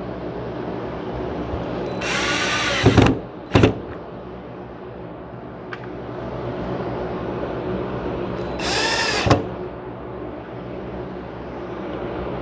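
Power drill/driver running screws in, in two bursts of about a second each. The motor's pitch climbs and falls with the trigger, and a short extra blip follows the first burst.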